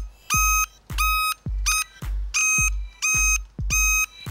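Circuit tester beeping in a steady on-off rhythm, about one and a half beeps a second, in step with the flashing turn signal: the probed white wire is the left turn-signal feed.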